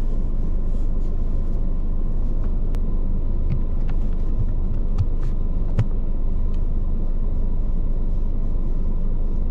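Car engine idling with the heater running, heard from inside the cabin as a steady low rumble, with a few small clicks scattered through it.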